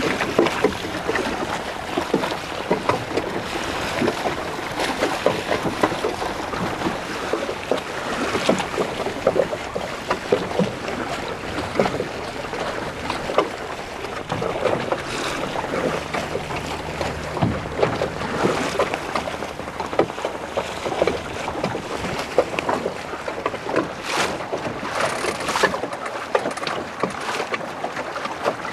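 Choppy water slapping and splashing against a small boat's hull in quick, irregular splashes, with wind buffeting the microphone. A faint low hum comes in from about fifteen to twenty seconds in.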